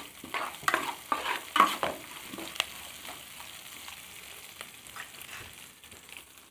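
A metal spoon scrapes and stirs chopped onions and green chillies frying in oil in an aluminium pan, over a steady sizzle. The onions are being fried toward golden. The stirring strokes come quick and loud in the first two seconds, then the sizzle goes on with only a few light scrapes.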